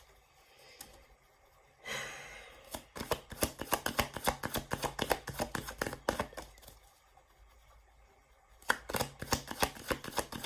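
Tarot cards being shuffled by hand: a short swish, then a quick run of card clicks, a pause, and another run of clicks near the end.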